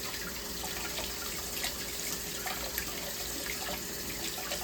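Kitchen tap running into the sink onto a lump of freshly churned butter, with small splashes, as the leftover buttermilk is rinsed out of it.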